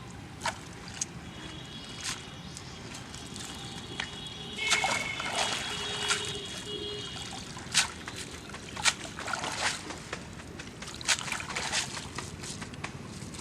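Pond water sloshing and trickling, with a scattering of short, sharp splashes and drips, some a little louder than the rest.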